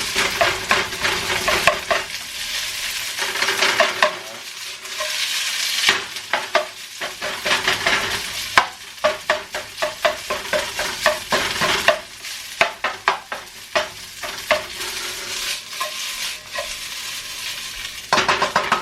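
Leftover rice frying in oil in a hot non-stick wok, sizzling, while a non-stick spatula stirs and breaks up the clumps with repeated short scrapes and taps.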